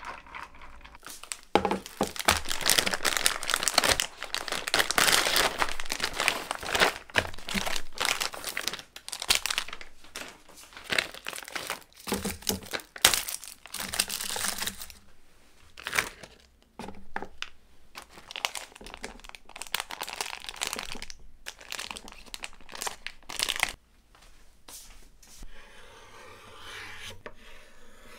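Plastic food packaging crinkling and tearing as a kimbap package is ripped open and emptied, with dense crackling for the first half and scattered rustles after. Near the end it gives way to quieter knife strokes on a cutting board.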